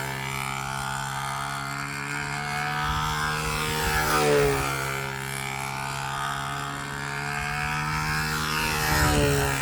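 Round-the-pole model aircraft circling on its tether, the drone of its motor and propeller rising and falling in pitch each time it sweeps past, about every four and a half seconds. It is loudest at two passes, near the middle and near the end.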